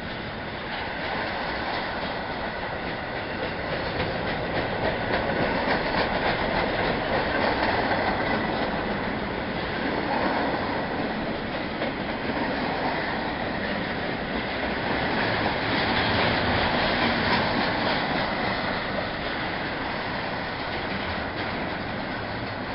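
Double-stack container freight cars rolling past close by: a continuous noise of steel wheels on the rails, swelling and easing in loudness as the cars go by.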